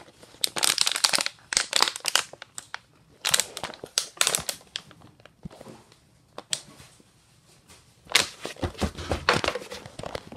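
Thin plastic water bottle crinkling and crackling as a baby grips and squeezes it. The sound comes in irregular bursts of a second or two with short pauses between, the longest starting about eight seconds in.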